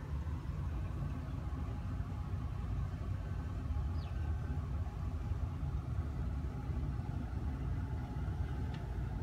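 Steady low rumble of outdoor street ambience, with a faint short high chirp about four seconds in and another near the end.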